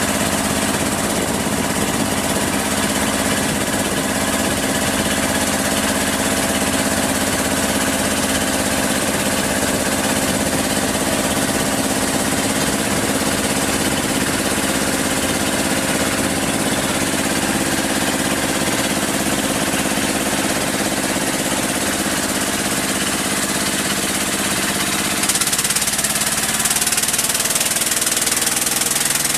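Inboard engine of a Moken kabang house-boat running steadily, heard on board close to the engine. About 25 seconds in, its pitch shifts slightly.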